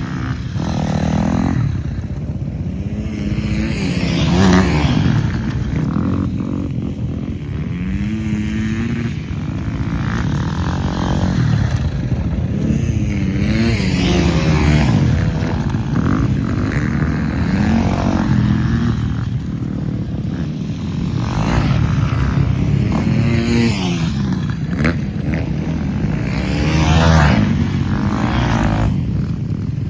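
Flat track motorcycle engines running hard around a small dirt oval, the engine note climbing and dropping every few seconds as the riders accelerate down the straights and back off into the corners.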